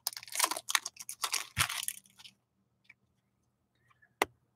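Hockey trading cards being flicked through and slid against one another, a dense run of papery scrapes for about two seconds, then a single sharp tap near the end as a card is set down on the table.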